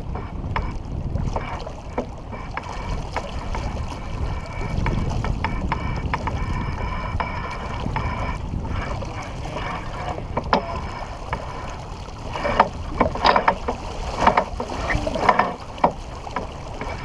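Sailboat under way: wind buffeting the microphone and water rushing along the hull, a steady low rumble, with a few louder bursts near the end.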